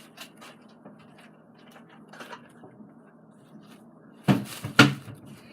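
Faint scattered clicks and light handling noises, then two loud knocks in quick succession a little over four seconds in.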